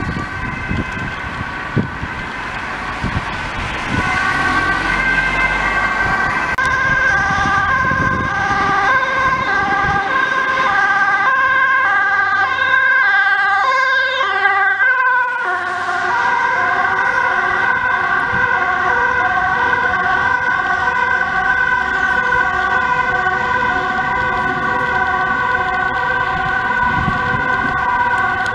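Dutch ambulance's two-tone siren, stepping back and forth between a high and a low note over engine and traffic noise. About halfway through its pitch drops slightly, then it carries on alternating.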